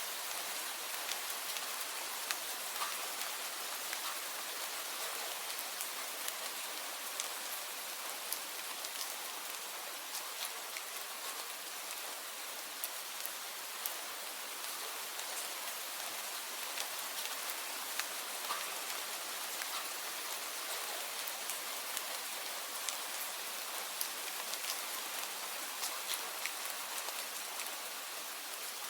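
Steady rain falling, an even hiss with many separate drops pattering on a surface.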